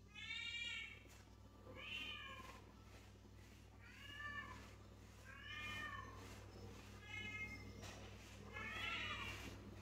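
A cat meowing again and again, about six meows roughly a second and a half apart, each rising then falling in pitch. A faint steady low hum lies underneath.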